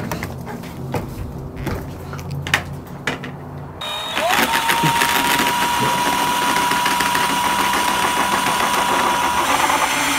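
A few light clicks and knocks, then an electric drill motor spins up with a rising whine and runs steadily at one pitch for about five seconds before stopping, while screws are driven into the wall for a camera mount.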